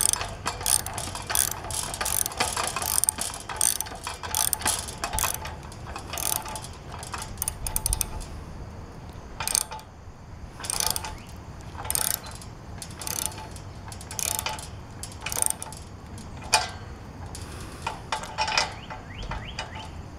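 Socket ratchet with a deep socket clicking in quick runs as its handle is swung back and forth, tightening the nut on a 3/8-inch carriage bolt through a steel gate hinge. The clicking is dense for about the first eight seconds, then comes in shorter runs with pauses between them.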